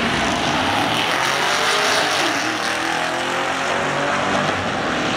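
A Corvette and a Camaro drag racing side by side, their engines revving hard at full throttle as they accelerate down the strip, pitch climbing through the middle.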